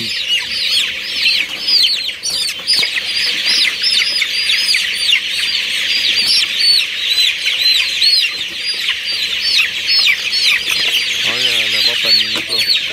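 A flock of young chicks peeping continuously, many short high chirps overlapping in a dense chorus.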